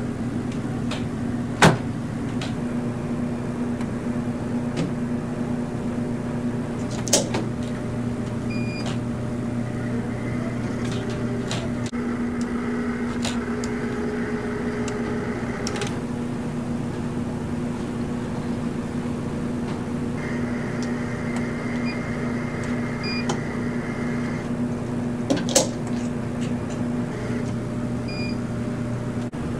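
Steady electrical hum of control-room equipment, with three sharp clicks and a faint high whine that comes and goes twice.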